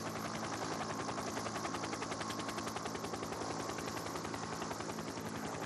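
Helicopter rotor noise: a fast, even chopping of about a dozen pulses a second over a steady engine hum.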